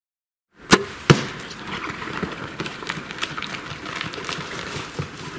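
Archery shot at a black bear: two sharp cracks about a third of a second apart, the bow's release and the arrow striking, followed by steady crackling and scuffing as the hit bear scrambles off over dry dirt and brush.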